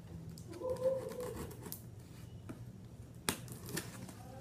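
Cardboard box and packaging being handled: light scrapes, rubs and taps, with a sharp click about three seconds in.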